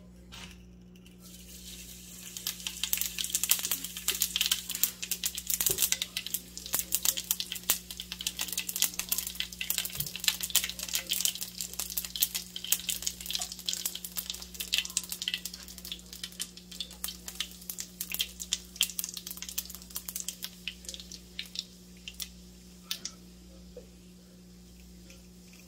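Whole spice seeds crackling and sizzling in hot oil in a frying pan, the tempering stage of lemon rice. A dense, fast crackle builds about two seconds in and thins out near the end.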